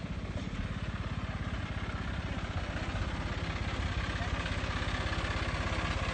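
Farm tractor's diesel engine running steadily with a fast, even low throb, growing slightly louder as it comes closer.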